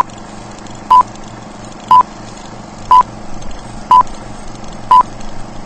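Film-leader countdown beeps: a short, high, pure beep once a second, six times, over a steady background hiss.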